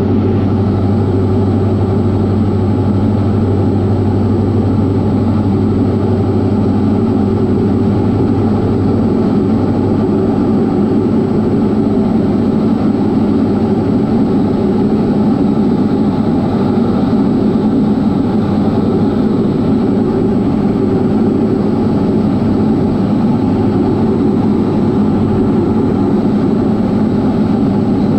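Diamond DA40's single piston engine and propeller running steadily in flight, a loud, constant drone. Its low hum eases about nine seconds in and firms up again near the end.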